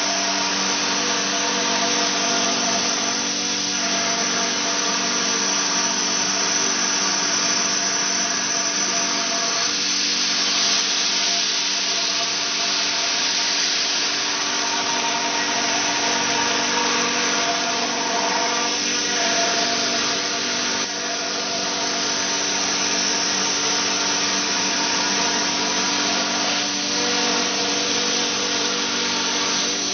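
CNC machine running steadily: a mechanical whine made of several held tones over a continuous hiss, with a brief dip in pitch about 19 seconds in.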